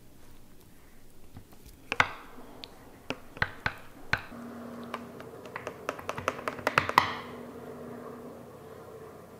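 Bamboo stirrer clicking and knocking against a glass jar as a thick smoothie is stirred hard: a few spaced clicks, then a quick run of them that ends with the loudest knocks, over soft background music.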